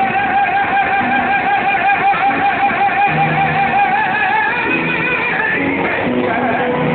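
A man sings opera, holding one long high note with a wide vibrato for about four seconds before moving on to shorter phrases. Plucked, guitar-like accompaniment notes sound beneath.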